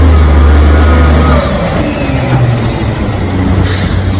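Mack garbage truck's diesel engine running as the truck turns and passes close by: a deep steady drone that drops away about a second and a half in, giving way to a rumble of engine and tyres, with two short hisses in the second half.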